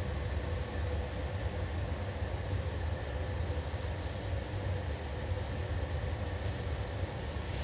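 Steady low rumble of distant engine noise, with a faint constant hum over it.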